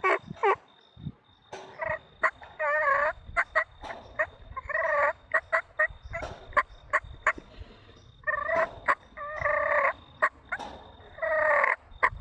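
Rio Grande wild turkey gobbling repeatedly, about six rattling gobbles, with short sharp clicks between them.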